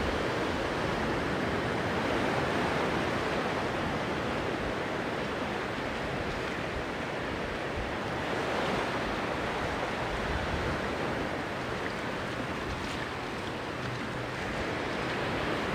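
Sea surf washing onto a sandy beach, a steady hiss of breaking waves that swells and eases gently.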